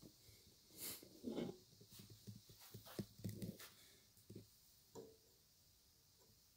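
Near silence with faint, scattered clicks, knocks and rustles, mostly in the first four seconds, then fainter ticks: handling noise.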